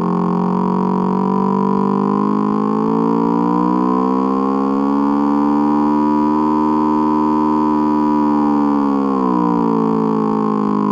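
Simulated engine sound of a 180-degree-crank parallel twin, firing with the uneven 180°/540° interval. Its pitch rises steadily as revs climb toward about 9,500 rpm, holds near the top, then falls quickly near the end as the revs drop.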